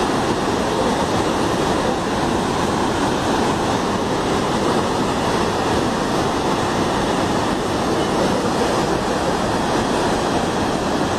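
Steady, loud rushing of floodwater.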